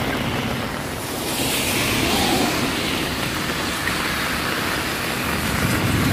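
Steady rain falling, with wind buffeting the phone's microphone.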